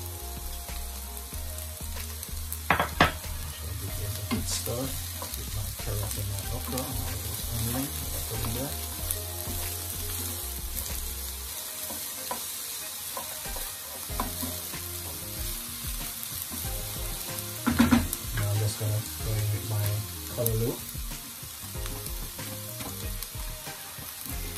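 Chopped okra, carrots and sweet peppers sizzling in a frying pan as they are stirred with a wooden spoon, with a couple of sharp knocks against the pan about 3 seconds and 18 seconds in.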